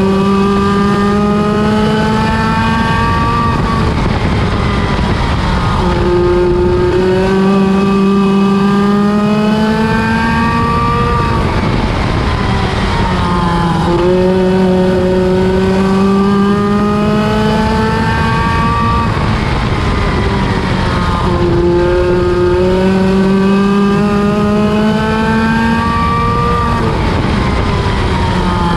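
Midget race car engine lapping an oval. It climbs in pitch down each straight, then drops sharply as the driver lifts for the turn, repeating about every seven and a half seconds.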